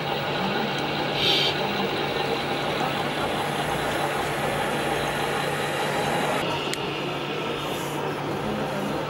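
Engine sound of radio-controlled scale trucks, a steady diesel-like idle, with a short hiss about a second in.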